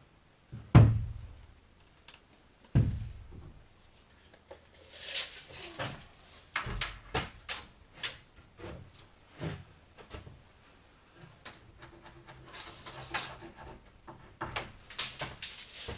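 Wooden framing lumber being handled: two heavy thuds in the first three seconds, then a run of lighter knocks with stretches of scraping and rubbing.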